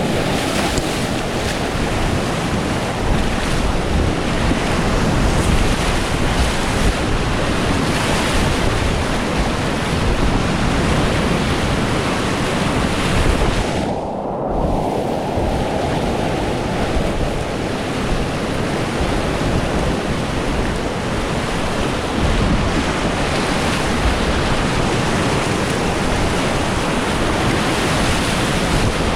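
Loud, steady rush of big whitewater rapids on a fast, pushy river, with wind buffeting the microphone. About halfway through, the sound goes briefly muffled, losing its hiss for a moment.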